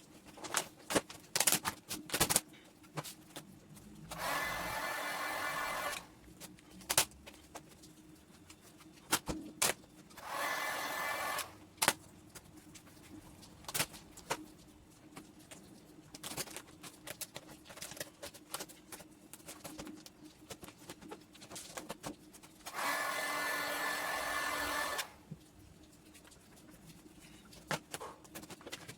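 A handheld hot-air blower runs three times, about two seconds each, with a steady rushing whir and a faint motor whine. Between the runs come scattered sharp clicks and crackles of handling.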